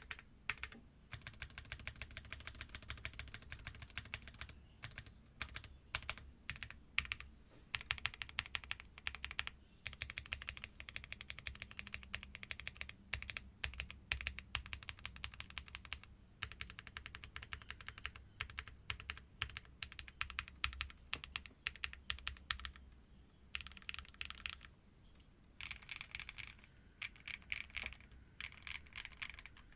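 Typing test on a stock CIDOO V65, a 65% gasket-mount keyboard with an aluminium case and a polycarbonate plate, in its factory state before modding. Fast, continuous keystrokes give dense clacking, with a couple of short pauses.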